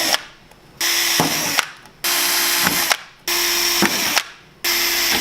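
Cordless drill boring pilot holes into a snowmobile tunnel, run in short trigger bursts: four bursts of under a second each, with brief pauses between.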